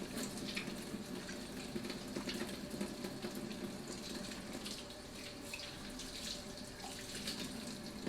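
Kitchen sink tap running while hands are washed under it, a steady rush of water with small splashes, shut off at the very end.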